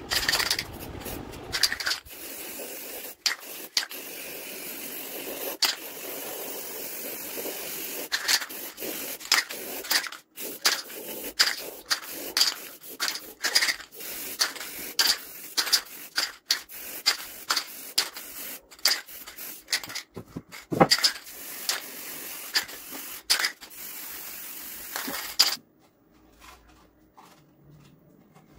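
Aerosol spray-paint can hissing as white paint is sprayed, a mostly continuous hiss broken by brief gaps and crossed by many sharp clicks; the hiss stops suddenly near the end.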